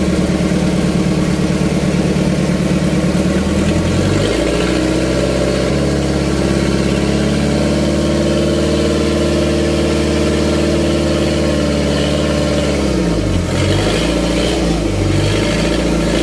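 Fishing boat's engine running loudly. Its pitch shifts about four seconds in, then rises and falls several times near the end as the engine speed changes.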